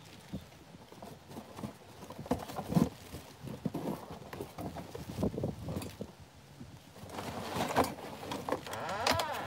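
A series of irregular light knocks and taps, then a short wavering pitched sound in the last two seconds.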